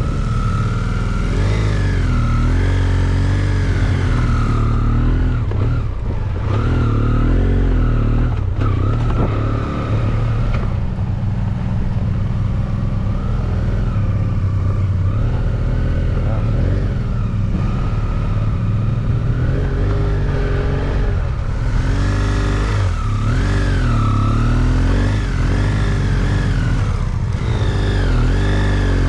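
Motorcycle engine running under way, its revs rising and falling every second or two as the throttle is worked.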